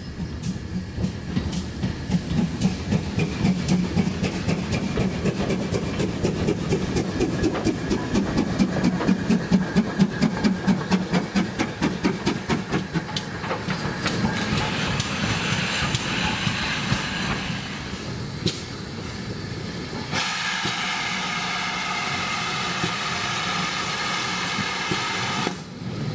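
GWR 7800 Manor class 4-6-0 steam locomotive No. 7802 Bradley Manor running light engine: a regular beat that grows louder, then fades, followed by a steady hiss of steam.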